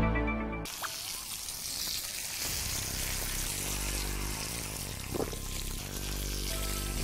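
Food sizzling as it fries in a hot pan, a steady hiss, with soft background music underneath. The last notes of a music jingle cut off under a second in.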